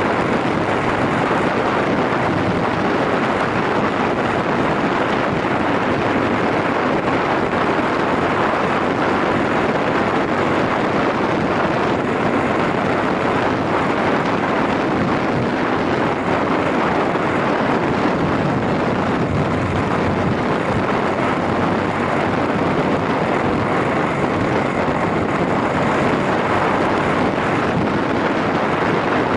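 Steady rush of wind over the microphone on a moving Yamaha SRX400 single-cylinder motorcycle, with the engine and road noise running underneath at a constant pace.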